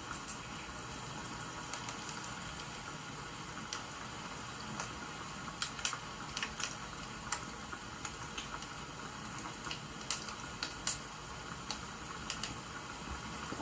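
Steady rain-and-crackling-fire ambience, a constant hiss with irregular sharp clicks and pops scattered through it, thickest in the middle stretch.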